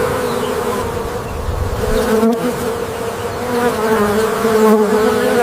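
A flying insect, such as a bee or fly, buzzing close by: a steady, low hum that wavers slightly in pitch.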